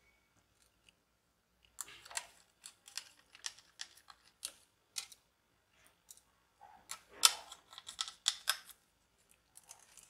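Sharp clicks and light metal taps from a 2.5-inch PNY SSD being fitted into a laptop's metal drive caddy, handled with a screwdriver. They start about two seconds in, and the loudest click comes about seven seconds in.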